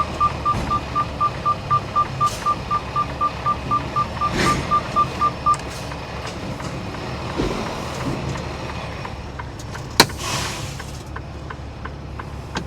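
Electronic beeper sounding a rapid run of short high beeps, about three to four a second, that stops about five and a half seconds in, over a steady low rumble. A sharp click comes about ten seconds in.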